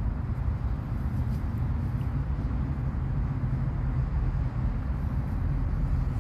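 Steady low rumble of outdoor background noise with no distinct events standing out.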